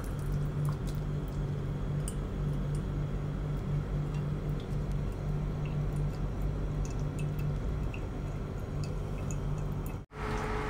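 Thick pan sauce with chopped vegetables poured from a frying pan into a wire-mesh strainer, squishing and dripping through into a bowl, with a few light clicks over a steady low hum.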